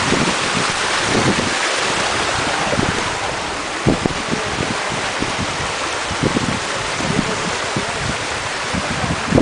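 Steady rush of falling water from a canyon waterfall, with irregular low thumps underneath.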